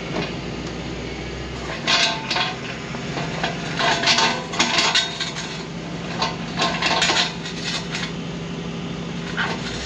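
A vehicle engine runs with a steady hum. Over it, a series of sharp metallic clinks and rattles comes in clusters from about two to eight seconds in.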